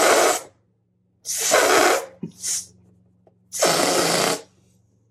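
Air hissing out of the stretched neck of an inflated rubber balloon in short bursts, each under a second, about every two seconds, as the neck is pinched and let go.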